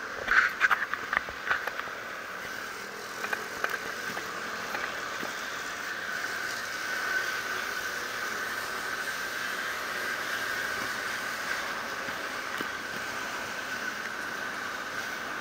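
Steady rolling noise of a low-mounted camera's vehicle moving over asphalt and pavement, with a steady high-pitched whine. A cluster of rattles and knocks comes in the first second and a half as it crosses the zebra crossing, with a few more knocks a few seconds in.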